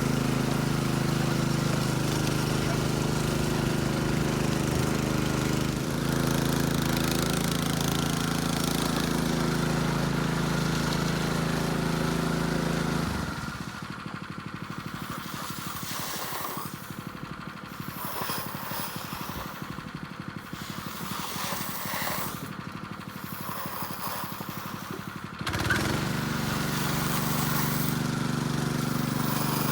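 An engine running steadily. About thirteen seconds in it gives way to a quieter, rattling stretch, and the engine sound comes back near the end.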